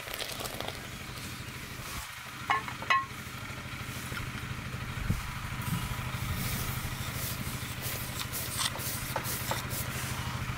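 Milk simmering in a clay pot while a ladle stirs and pours it, over a steady low mechanical hum. Two short clinks come about two and a half seconds in.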